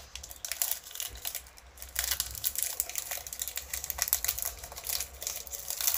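Foil-lined wrapper of a Princessa wafer bar being torn open and crinkled by hand: a dense crackle of small clicks, busier from about two seconds in.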